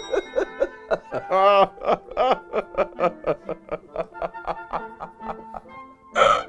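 A man laughing in quick repeated chuckles, about four or five a second, with one longer laugh about a second and a half in, over light background music.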